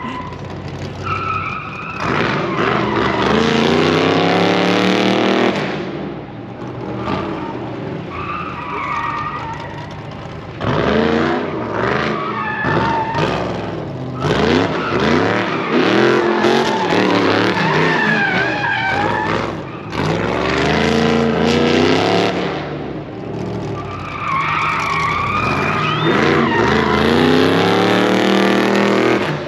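Pickup truck running an autocross course: its engine revs up and drops off again and again as it accelerates between turns, with tires squealing through the corners.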